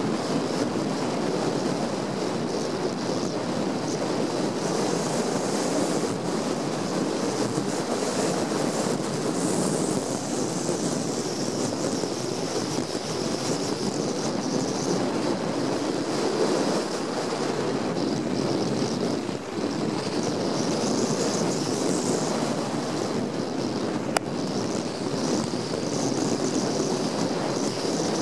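Steady rush of wind noise on the microphone, mixed with mountain bike tyres rolling over packed snow on a downhill run, with one brief click near the end.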